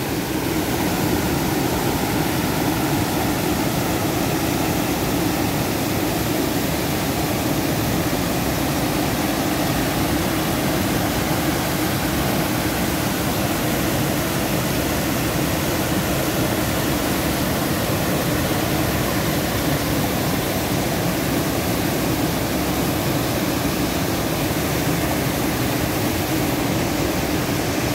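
River water rushing over a low concrete weir: a loud, steady rush of falling white water.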